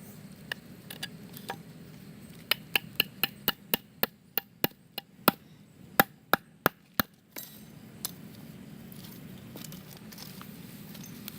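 Chopping strikes with a blade on wood: a few single knocks, then a quick run of about fourteen sharp, slightly ringing chops, about four a second.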